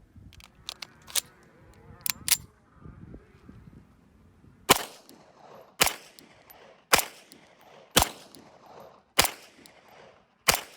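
Beretta M9A3 9 mm pistol fired unsuppressed: six shots about a second apart, starting nearly five seconds in, after a few short clicks.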